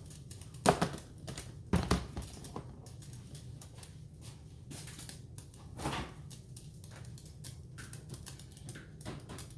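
Scattered knocks and clicks of objects being handled and set down in a kitchen, the two loudest knocks close together near the start and another about six seconds in, over a steady low hum.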